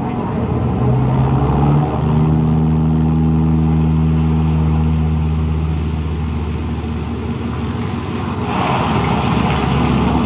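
Propeller aircraft engines droning steadily on an old film soundtrack played back in a hall. The pitch steps up about two seconds in and then holds. A rushing hiss grows louder near the end.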